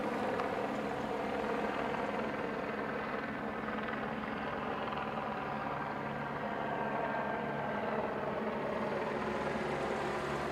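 Steady drone of running engines, with many even tones whose pitch sags slightly midway.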